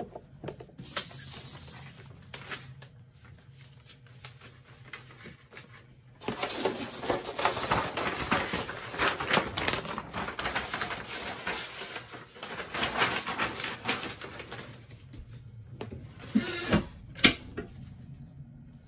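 Butcher paper rustling and crinkling as it is lifted and laid over a heat press, then a few sharp clacks near the end as the heat press lid is handled.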